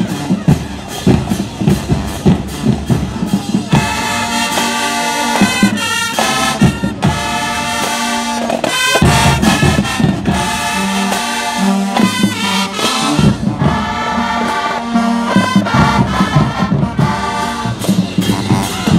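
High school marching band playing loudly: the drumline beats alone for the first few seconds, then the brass section comes in with held chords that break off briefly a few times, and the drums carry on mostly alone again near the end.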